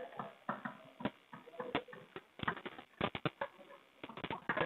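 Chalk writing on a chalkboard: a quick, irregular run of taps and short scratches as letters are formed.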